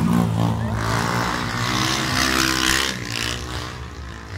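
Motorcycle engine revving as the bike is ridden past on its back wheel in a wheelie, growing fainter after about three seconds.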